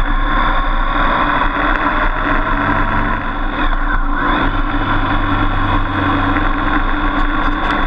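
Motorcycle engine running steadily while riding along, with wind rushing over the bike; the engine pitch shifts slightly a couple of times.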